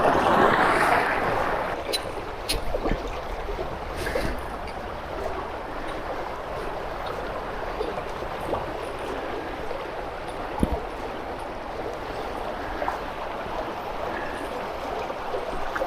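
A swollen creek running high: a steady rush of flowing water, louder over the first couple of seconds. A few faint clicks and knocks sound over it.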